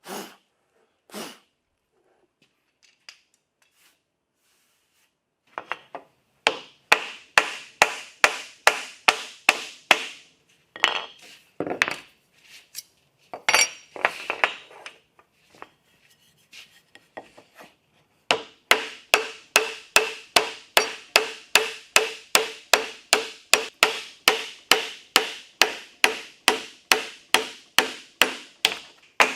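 Hand tool in woodworking struck by a hammer or mallet in a steady rhythm, about three sharp ringing blows a second, in two runs with a brief scraping pause between them.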